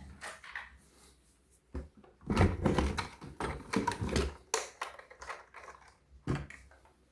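Clattering of small hard objects being handled: a dense run of quick clicks and knocks in the middle, with a single thump shortly before it and another near the end.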